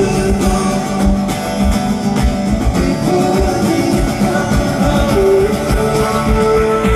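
Live acoustic guitar played with wordless held singing over it, a loud, full arena sound as heard from among the audience.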